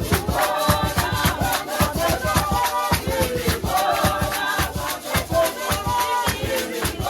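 Music: singing over a fast, steady shaker-like beat.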